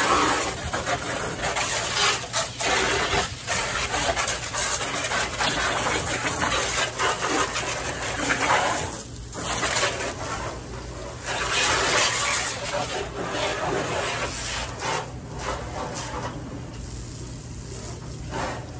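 Garden hose spray nozzle hissing as water is sprayed over a pickup truck. The spray breaks off briefly about nine seconds in and runs quieter near the end.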